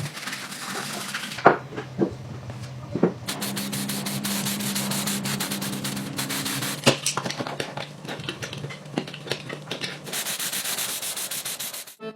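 A power sanding tool running against a part: a steady motor hum under a scratchy hiss. The hiss drops away briefly about a second and a half in and returns about three seconds in, with a few sharp knocks along the way.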